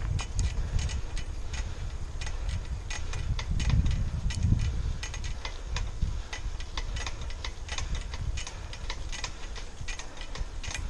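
Wind buffeting the microphone of a camera riding on a moving bicycle, a low rumble that swells and fades, with irregular light ticks and clicks from the bike a few times a second.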